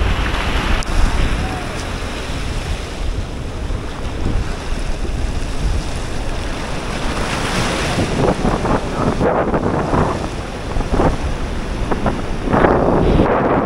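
Sea surf breaking and washing on a beach, with wind buffeting the microphone. The noise swells louder about eight seconds in and again near the end.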